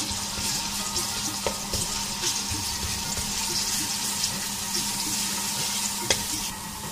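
Grated garlic sizzling in hot oil in a metal kadhai while a wooden spatula stirs it, scraping the pan and knocking against it a couple of times. The garlic is being fried until it browns.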